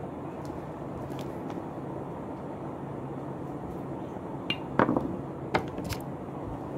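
A few sharp small clicks and taps as a screwdriver works on a small relay's parts, the loudest about five seconds in, over a steady background hum.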